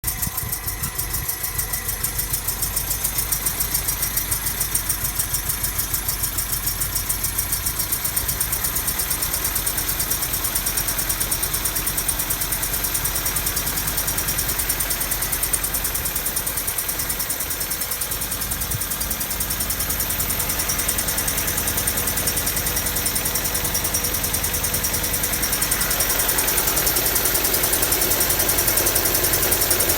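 Honda Civic's D16Y7/Y8 'MiniMe' 1.6-litre four-cylinder engine idling roughly with a rapid, even pulsing. It gets a little louder near the end. The owner takes the rough idle for a spun bearing caused by too much nitrous.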